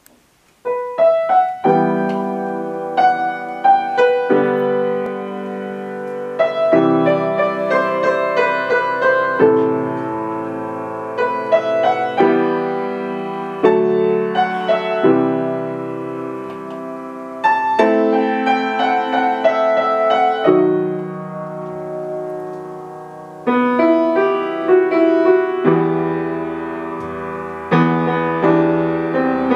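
Upright piano played solo, chords struck every second or two and left to ring, starting just under a second in. Deeper bass notes come in near the end.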